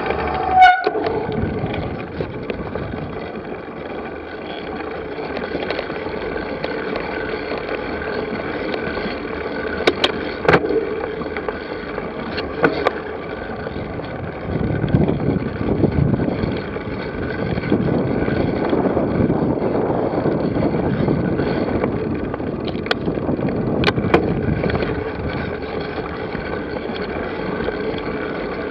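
Continuous rolling rumble and wind on the microphone of a camera on a moving bicycle over rough ground, with scattered clicks and rattles. There is a sharp ringing knock about a second in, and the rumble grows rougher in the middle.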